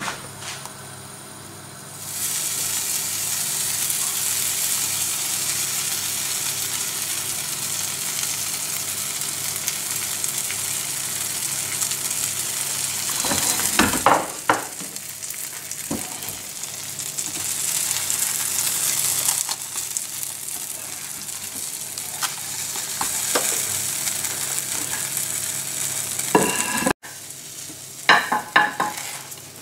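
Omelette egg frying in a non-stick pan: a steady sizzle that starts about two seconds in, with a few knocks in the middle. Near the end there are short clicks and scrapes of a silicone spatula against the pan.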